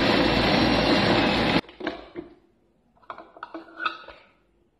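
Moulinex food processor motor running for about a second and a half, mincing chicken with chopped green onion, then cutting off suddenly. Knocks and clicks of the plastic processor bowl being taken off and emptied follow.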